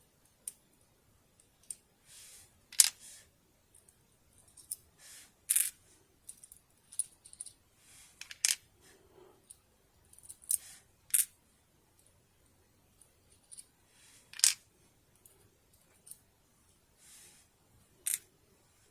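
Irregular small metal clicks and light scrapes as the discs of an Abus 88/40 disc detainer lock are taken out during disassembly. The sharpest clicks come about three seconds in and again about fourteen seconds in.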